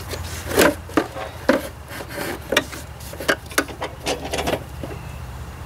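Irregular knocks, clicks and short scrapes of tractor parts and hand tools being handled as a part is worked loose, over a steady low hum.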